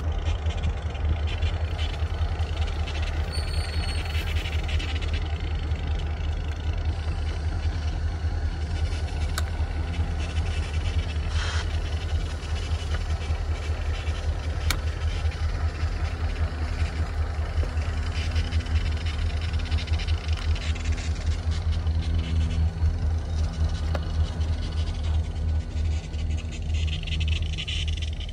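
Freight train rolling past close by, its boxcars and tank cars running on the rails with a steady heavy rumble and a few faint clicks. A faint steady low hum comes in about halfway through.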